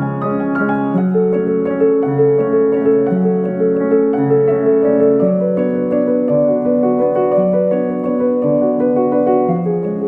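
Background music: gentle piano playing slow sustained notes and chords.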